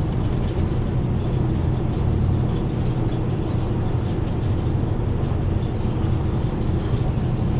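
Steady engine and road rumble heard inside the cabin of a Ford all-wheel-drive van on the move.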